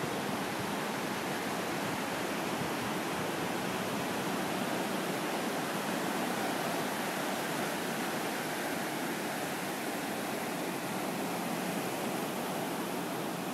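Ocean surf breaking offshore and washing up a sandy beach, a steady hiss of waves with no distinct single crashes.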